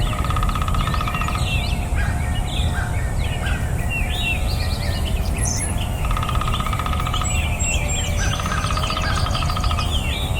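Several birds chirping and calling at once, with many short overlapping chirps and whistles. A rapid buzzy trill comes three times: at the start, about six seconds in, and near the end. A steady low background noise runs underneath.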